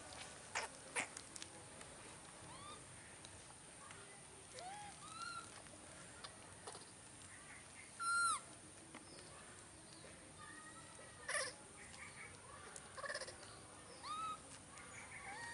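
Baby monkeys giving short, high-pitched cries that rise and fall, about a dozen scattered through, loudest a little past halfway. Two sharp clicks sound near the start.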